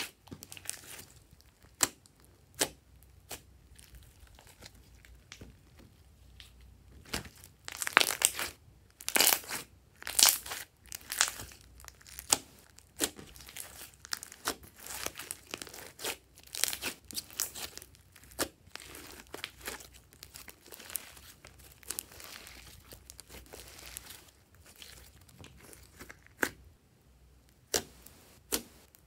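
Hands squishing, stretching and pressing glossy slime: an irregular run of sticky pops, crackles and tearing sounds, busiest in the middle and sparser toward the end.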